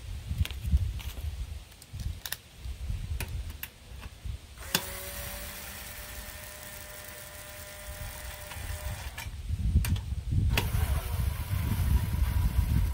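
Handheld cordless power driver whirring steadily as it backs out the bolts on a lawnmower engine's fan cover. It runs for about four seconds starting near five seconds in, then starts again a little before the end. Scattered knocks and a low rumble come before and around the runs.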